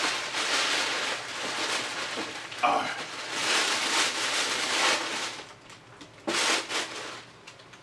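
Tissue paper and a cardboard box rustling as a pair of sneakers is unwrapped and lifted out. Loud for about five seconds, then quieter, with a short rustle a little after six seconds in.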